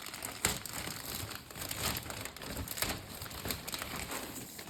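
Packaging crinkling and rustling in irregular bursts as a newly unboxed jacket is handled and unwrapped.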